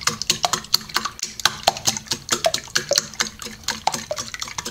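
Raw eggs being beaten by hand in a glass bowl: a utensil clicks fast and unevenly against the glass, several strokes a second, with the liquid egg sloshing.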